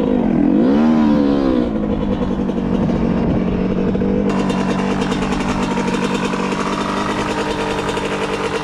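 Dirt bike engine revving briefly, its pitch dipping and climbing about a second in, then running at a steady pitch.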